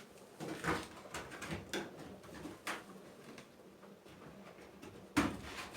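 Scattered short plastic clicks and scrapes as the drain-pump filter cap at the bottom of a front-loading washing machine is worked loose, with a louder knock near the end.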